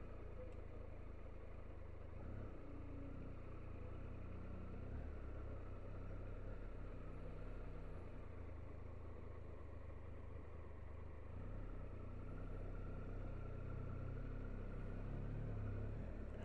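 Triumph Tiger 1200 XRT's three-cylinder engine running faintly and steadily at low speed in second gear.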